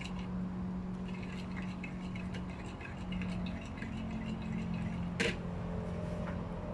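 A metal spoon stirs beaten egg in a ceramic bowl, with light scraping and clinking against the bowl and one sharp clink about five seconds in, over a steady low hum.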